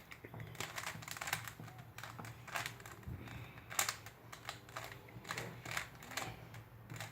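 Plastic Rubik's cube being turned by hand: quick, irregular clicks and clatters as the layers are twisted into place.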